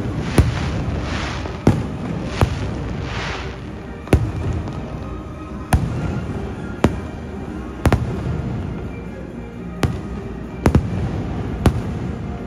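Aerial firework shells bursting overhead: about ten sharp bangs at uneven intervals, with waves of crackling from glittering stars in the first few seconds.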